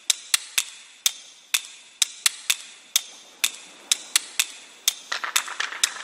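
Intro of an electronic dance track: short, sharp, clicky synth plucks in an uneven rhythm, thin and bright with no bass. About five seconds in, a denser layer of quick fluttering ticks joins.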